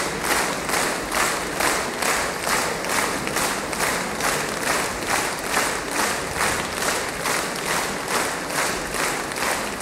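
Audience applauding in unison, a steady rhythmic clapping of about two and a half claps a second.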